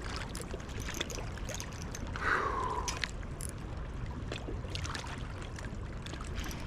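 Steady rush of a high, flooded river, with scattered light clicks and one short falling note a little over two seconds in.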